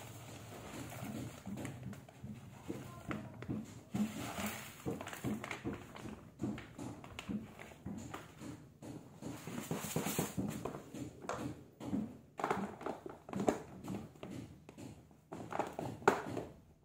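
A plastic cat litter box and its litter being handled: irregular gritty rustling, scraping and clicking, with a few sharper plastic knocks in the second half as the lid goes on.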